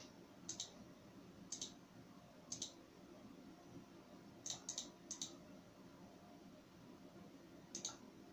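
Computer mouse button clicking: seven short, sharp clicks spaced unevenly, each a quick double tick, over a faint steady background hum.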